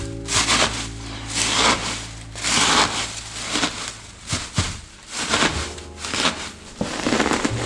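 Dry tobacco leaves crunching and rustling as a wire pastry blender chops them in a plastic tub, in repeated irregular strokes.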